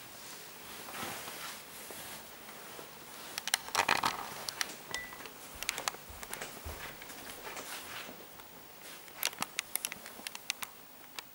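Quiet room with scattered clicks and light knocks from someone walking while holding a camera, a louder cluster about four seconds in and another near nine seconds.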